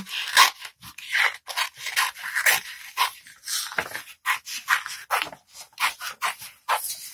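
Scissors snipping through paper, about two cuts a second, as a painted paper circle is cut out around its edge.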